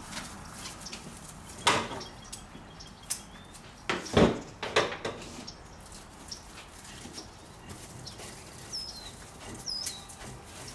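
Handling noise: a few scattered knocks and clatters, the loudest about four seconds in, with two short high falling chirps near the end.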